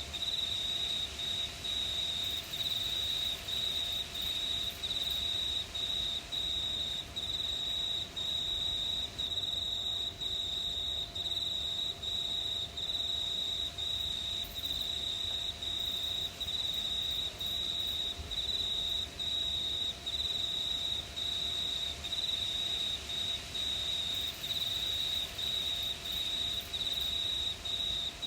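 Crickets chirping at night. One cricket's high, nearly continuous trill dominates, broken by short pauses about one and a half times a second, over a fainter chorus. A higher, fainter hiss comes and goes a few times.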